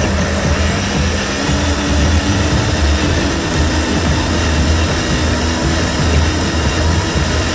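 Traxxas TRX-4 RC crawler's electric motor and drivetrain whining steadily as the truck drives over leaf litter.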